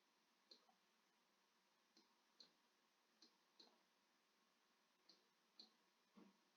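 Faint clicks of buttons being pressed, coming in pairs about half a second apart, four times, with a duller knock near the end.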